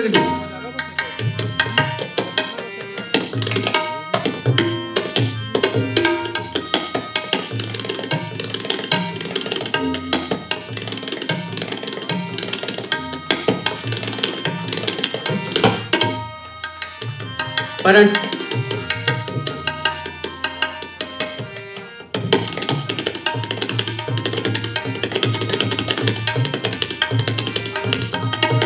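Tabla solo in fast teentaal: rapid strokes on the dayan and bayan, with brief breaks between phrases. Under it a harmonium holds a repeating lehra melody.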